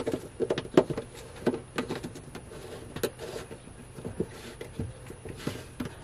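Plastic drain fittings handled and pushed together: a flexible elbow being worked onto a plastic sink drain pipe, with irregular small clicks, knocks and rubbing, thickest in the first two seconds.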